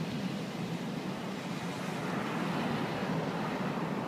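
Wind blowing steadily across a phone's microphone, a continuous rushing noise.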